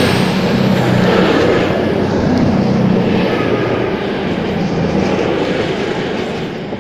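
CrossCountry Voyager diesel multiple unit departing, its carriages passing close by with the underfloor diesel engines giving a loud, steady drone that eases slightly toward the end.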